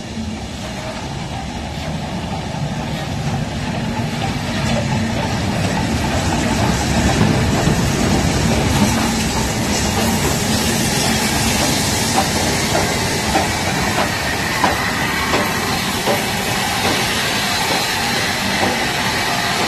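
USATC S160 2-8-0 steam locomotive and its train of coaches running past along the platform. The loco's steam hisses as the sound builds up, then the coach wheels click over the rail joints in a steady run of ticks.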